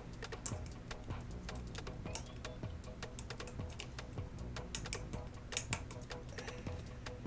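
Irregular small clicks and taps of a precision screwdriver and tweezers working tiny screws out of an iPhone 6s, with a few sharper clicks around the middle and near the end.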